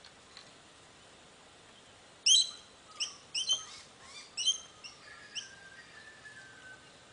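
Sulphur-crested cockatoo giving a quick run of about seven short, loud squawking chirps, starting about two seconds in, followed by a faint, slowly falling whistle.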